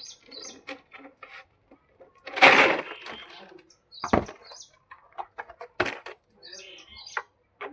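Plum-headed parakeet feeding: a run of small clicks and cracks of beak on food, with a louder rustling burst about two and a half seconds in and sharp snaps later on.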